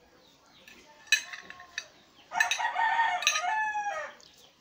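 A rooster crowing once, about halfway through: a single long crow that ends in a falling note. Shortly before it, a sharp clink of a metal fork on a plate.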